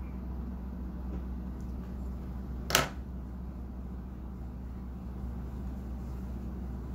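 Steady low electrical or fan-like hum of a small room, with a single sharp click about three seconds in.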